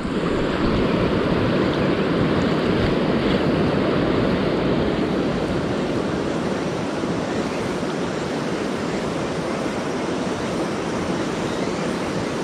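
Steady rushing of a shallow, rocky river's current, heard close to the microphone.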